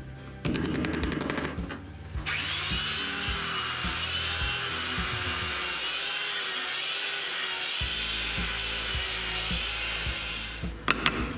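Handheld electric belt sander running on a thin hardwood workpiece, its motor whine wavering slightly under pressure; it starts about two seconds in and stops near the end, followed by a few sharp knocks of wood on the bench.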